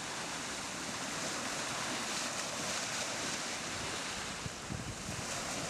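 Ocean surf washing up a sandy beach: a steady rush of breaking water.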